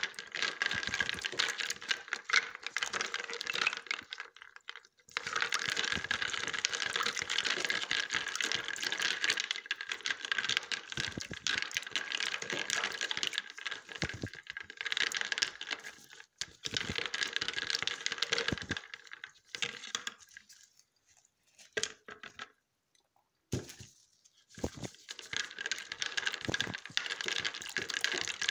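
A spatula stirring and scraping around a plastic mixing bowl: a dense run of scratchy, clicking strokes, stopping briefly about five seconds in and again for a few seconds near the end.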